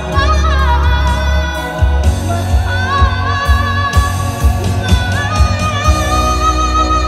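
A boy singing a melody into a microphone over amplified backing music with a heavy bass, heard through a PA system. From about six seconds in he holds one long high note.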